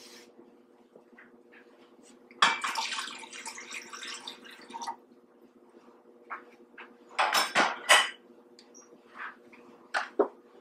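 Kitchenware clattering and knocking: a couple of seconds of rattling, then a quick cluster of knocks, and two clicks near the end as the Instant Pot's lid is lifted off the stovetop. A steady low hum runs underneath.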